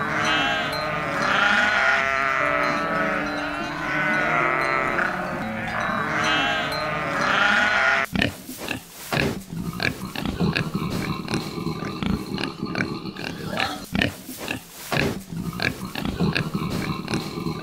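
Farm animal calls: for about eight seconds, many overlapping calls that rise and fall in pitch, then an abrupt cut to a different animal sound made of rapid clicks and rasping noises.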